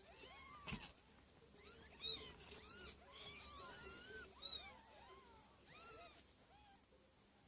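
Week-old kittens mewing: a string of short, high-pitched mews, some overlapping, loudest in the middle. A single sharp click sounds near the start.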